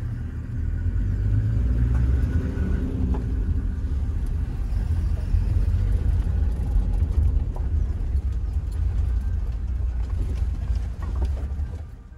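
Inside a safari 4x4 driving over a rough dirt track: a steady low rumble from the engine and tyres, with scattered knocks and rattles from the body. It fades away at the very end.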